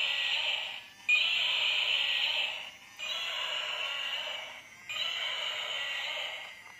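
Battery-powered walking dragon toy playing its recorded roar through its small built-in speaker. A harsh electronic roar repeats about every two seconds: one ends about a second in, and three more follow.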